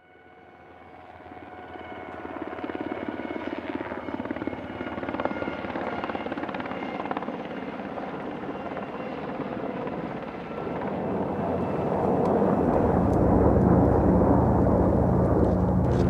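Helicopter running, fading in from silence and growing steadily louder, with a rapid, even beat of rotor blades over a pitched engine whine; it grows louder and heavier again about twelve seconds in.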